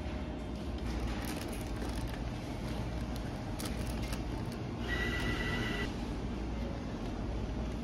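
Steady low hum of shop background noise, with a single electronic beep lasting about a second, five seconds in.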